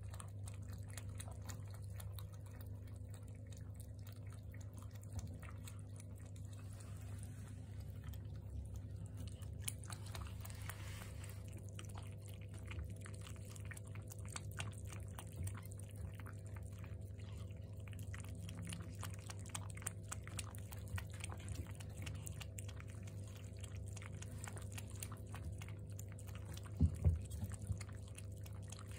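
Two kittens lapping milk from a ceramic bowl: many faint, quick wet clicks over a steady low hum. Two louder knocks sound about two seconds before the end.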